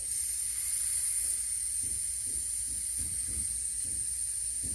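Butane gas hissing steadily as a butane can is pushed and held on the fill valve of a butane soldering iron, refilling its tank.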